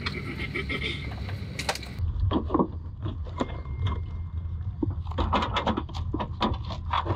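Short clicks and knocks of handling, at first from hand tools in a Jeep's cargo floor, then, from about two seconds in, from hands lifting the hinged lid of a carpet-lined cargo storage unit in its cardboard box. A steady low rumble runs underneath.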